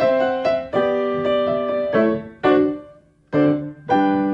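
Short piano interlude: a series of struck chords and notes, each ringing and fading, with a brief gap about three seconds in.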